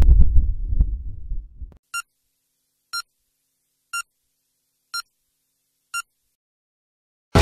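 A low rumble fades out over the first two seconds. Then five short electronic countdown beeps sound one second apart, ticking the animation down to zero.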